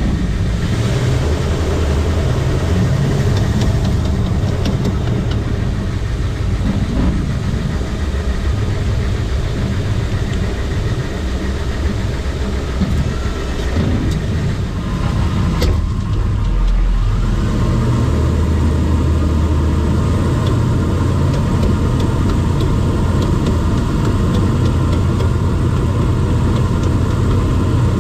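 2000 Toyota Land Cruiser 100 Series driving, with steady road and engine noise and a faint repeated clicking from somewhere in the drivetrain that follows wheel speed. The clicking persisted after a new driver's-side CV axle, ball joint and bearings, and the owner doubts it is a CV joint because it does not favour one side. One sharper click comes about 16 seconds in.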